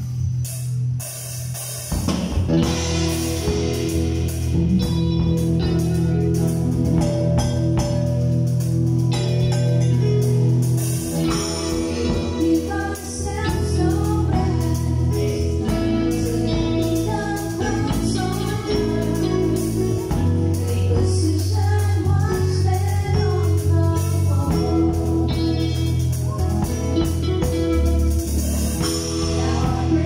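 A live worship band playing a song on drum kit and electric guitars, with singing. A quieter opening gives way to the full band about two seconds in.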